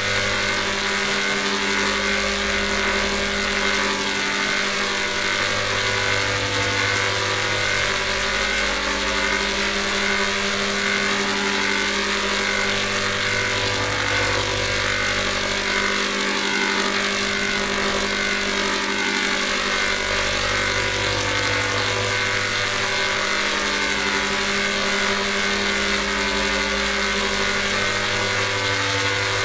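Dense, loud electronic drone: a steady held chord over a bass that alternates between two low notes every few seconds, with hissy distortion over the top. It plays as one unbroken, looping texture.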